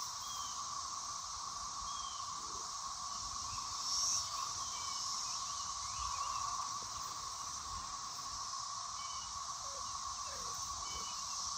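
A steady, droning chorus of many cicadas, with faint bird chirps over it.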